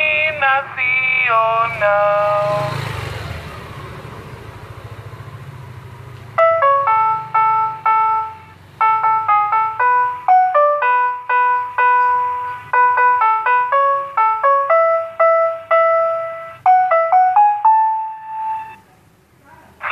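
The recorded calling sound of a Susu Murni Nasional milk cart. The end of a sung voice call in the first two seconds, then an electronic jingle tune of plain, steady notes from about six seconds in until shortly before the end.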